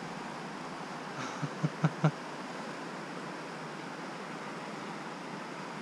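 Steady rush of a mountain creek's flowing water, with a few short sharp sounds about a second and a half to two seconds in.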